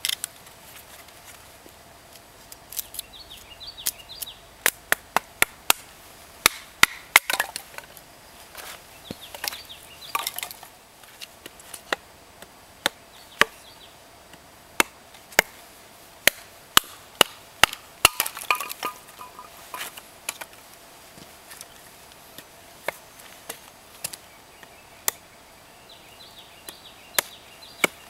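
Hatchet chopping and splitting short lengths of firewood into kindling: many sharp, irregular knocks, often in quick runs.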